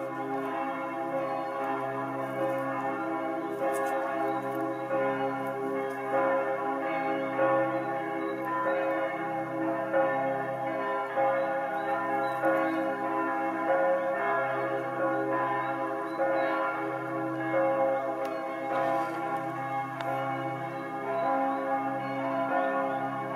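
Ambient instrumental background music with sustained, bell-like chiming tones that swell and fade gently.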